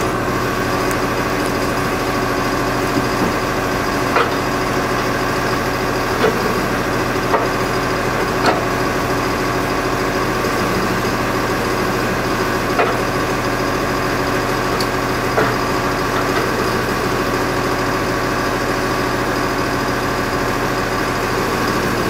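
An engine idling steadily, with a few brief sharp knocks now and then.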